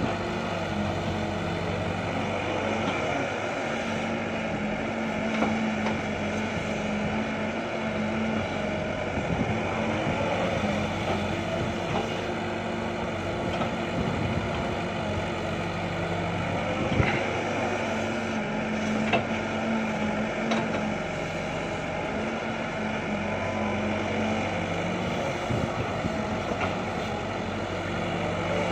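Sumitomo S265 hydraulic crawler excavator's diesel engine running steadily while it digs. There are a few short knocks, the loudest about two-thirds of the way through.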